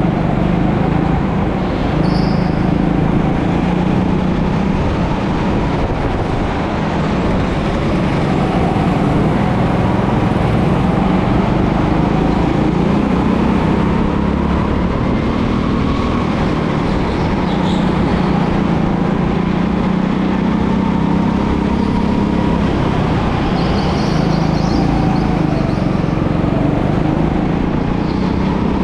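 Go-kart engine running continuously at speed, its pitch drifting up and down as the throttle is eased and opened.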